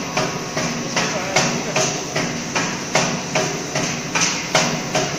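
Wavy-chip snack pellet production machinery running, with a regular knocking about two to three times a second over a continuous mechanical rattle.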